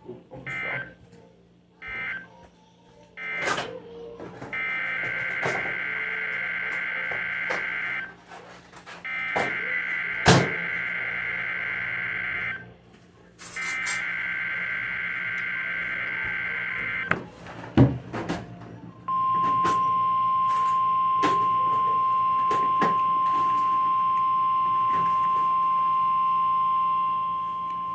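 Weather radio test signal: three buzzing digital SAME data bursts of about three and a half seconds each, then, about two seconds later, the steady 1050 Hz warning alarm tone held for about nine seconds. Crackles of static run throughout.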